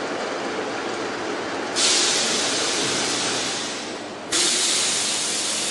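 Routech OIKOS CNC timber beam-processing centre running steadily, with two sudden bursts of hissing air about two and a half seconds apart, each fading over a second or two.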